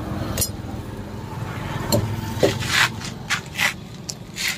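Short scraping strokes, about eight at uneven intervals, as stones lodged in a truck tyre's tread are prised out. The big stones are dug out because left in the tread they can break the tyre.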